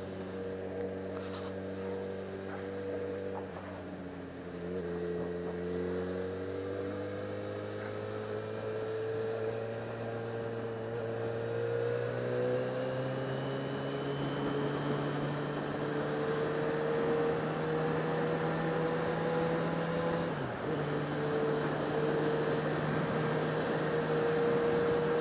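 Yamaha XJ6 motorcycle's inline-four engine under way, heard from the rider's helmet, its note climbing steadily as it pulls and then holding. Its pitch briefly dips about twenty seconds in. A rush of wind noise grows as speed builds.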